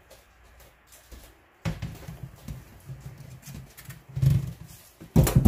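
Live catfish flopping in a plastic colander and being tipped into a stainless steel sink: a few heavy wet thuds and knocks, the loudest near the end as they land.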